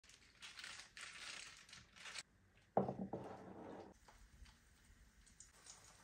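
Crinkly rustling as a bunch of cut tulips is handled, in two spells over the first two seconds, then a single knock with a short ringing tail about three seconds in.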